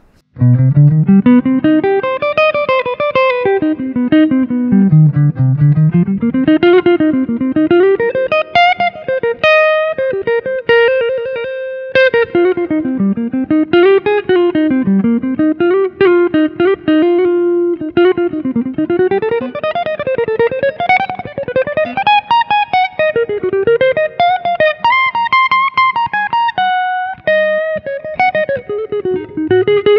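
Tokai ALS62 Les Paul-style electric guitar played through an amplifier on its neck humbucker alone, giving a warm tone. Fast single-note runs climb and fall, with a note held for a couple of seconds about ten seconds in.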